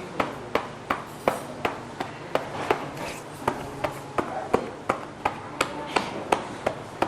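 A steady series of sharp clicks, evenly spaced at about three a second.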